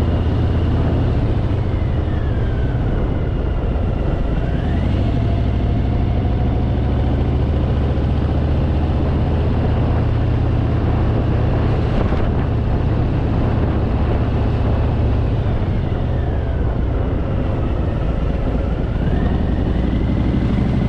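Harley-Davidson Fat Boy's V-twin engine running steadily under load on a climb, with wind rushing over the microphone.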